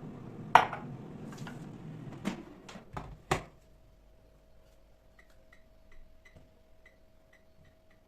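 Kitchen clatter: five sharp knocks of dishes or utensils, the first and loudest about half a second in, over a steady rushing noise that cuts off about three and a half seconds in. After that a faint steady hum with light, irregular ticking.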